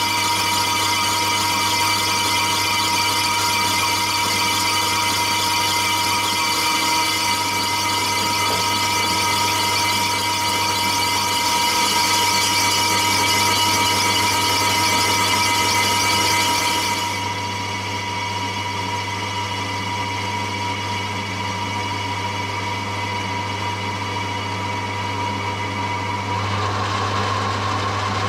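Metal lathe running under a facing cut across a cast aluminium casting, a steady whine of several held tones with a hiss on top. About seventeen seconds in, the higher hiss drops away abruptly, leaving the lathe's whine, and the sound changes again near the end as a drill is brought to the centre of the spinning face.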